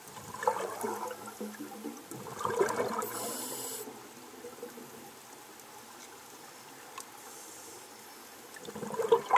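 Scuba divers' exhaled bubbles gurgling and crackling past an underwater camera, in two long bursts over the first four seconds and another near the end, with a short high hiss about three seconds in.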